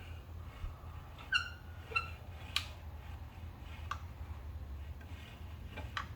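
A few sharp metallic clicks and two short ringing chirps from a wrench working the front wheel's lug nuts, over a steady low hum.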